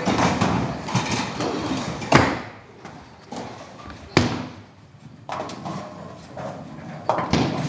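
Bowling alley noise: a bowling ball rumbling down the lane, then sharp clattering knocks of the ball and pins about two seconds in, again about four seconds in and near the end.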